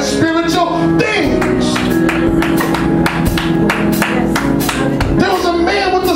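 Live church music with a steady drum beat and a long held note through the middle, with a man's voice over it near the start and again near the end.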